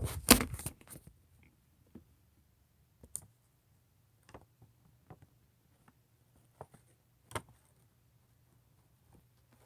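Handling noise from a hand-held phone camera: a loud rustling clatter in the first second, then a faint low hum with a few short, scattered clicks about once a second.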